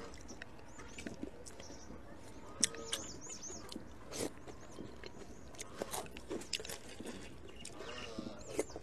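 Close-up eating sounds: wet chewing, lip smacks and slurping of dumplings in chili-oil broth, in short separate smacks and clicks. A bird chirps a few times in the background, about three seconds in.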